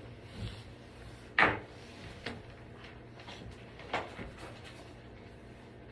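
Parts being handled during a repair: one sharp knock about a second and a half in, then a few lighter knocks and rubbing.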